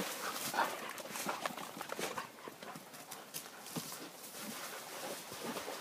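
Footfalls and rustling on a leaf-strewn dirt forest trail as Czechoslovakian wolfdogs run along it: an irregular run of light crunches and thuds.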